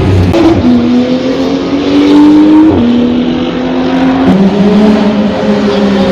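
Race car engine accelerating hard through the gears on track, its pitch climbing and then dropping at each upshift, three times: about half a second in, near three seconds and just past four seconds.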